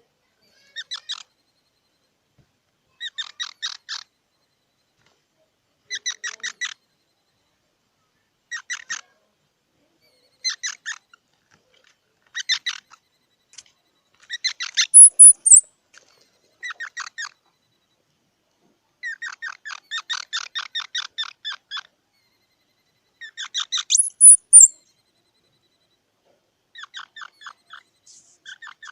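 Squirrel giving its chattering alarm call: rapid trains of sharp chips, each train under a second long, repeated every two to three seconds, with a longer run around 20 seconds in. Twice, about halfway and again near the three-quarter mark, the train ends in a very high, much louder squeak.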